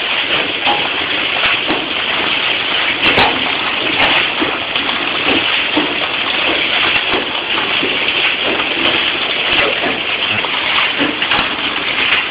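Bread packaging machine running, wrapping trays of buns in film: a steady, even mechanical noise with faint, irregular ticks.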